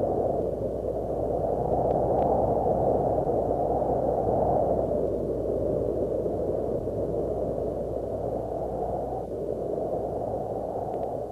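Wind rushing in gusts: a muffled noise that swells and eases every few seconds.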